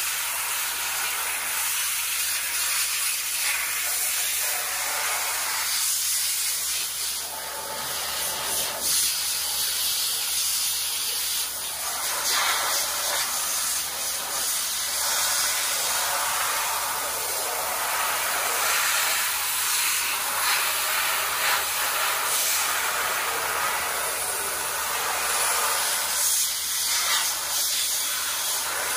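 Dry ice blaster firing CO2 pellets in a compressed-air stream at a truck's chassis and suspension underside: a steady, loud hiss that swells and dips a little, stripping grime as prep for paint and undercoating.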